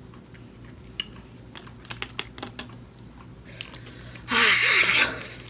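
Light clicks and taps of food packaging being handled, then a louder scratchy rustle about four seconds in that lasts under a second.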